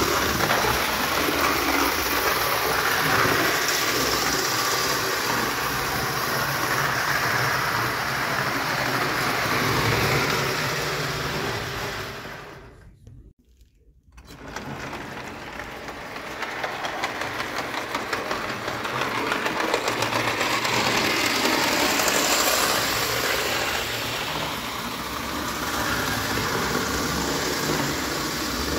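Märklin 'Storchenbein' tinplate 0-gauge locomotive and its wagons running on tinplate track: a steady mechanical whir and rattle. About halfway through it stops, with a second or two of near silence, then the running sound starts up again.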